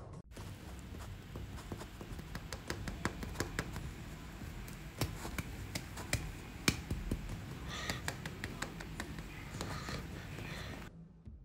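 A card tapping and scraping on a vinyl seat as powder is cut into lines: a long, irregular run of small sharp clicks over a faint low hum.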